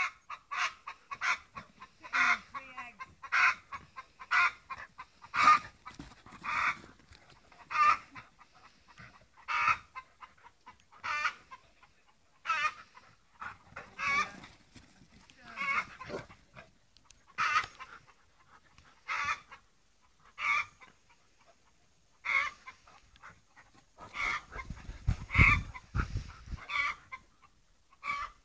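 Short animal calls repeated roughly once every second or so, with a low rumble for a few seconds near the end.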